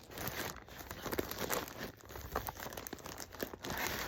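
Packaging crinkling and rustling with many small crackles as items are handled and unwrapped.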